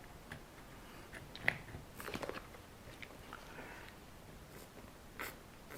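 Faint, sparse clicks and crackles of hands handling a superglue gel tube and a rubber RC tyre, with a sharper click about a second and a half in.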